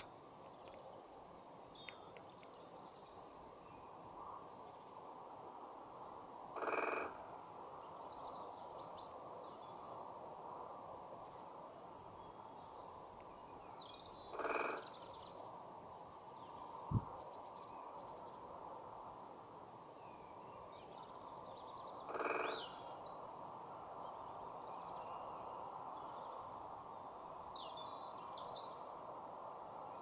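Great spotted woodpecker drumming on a tree trunk: three short rolls of rapid strikes, each well under a second, about eight seconds apart. Small birds call faintly in the background, and a single dull thump comes between the second and third rolls.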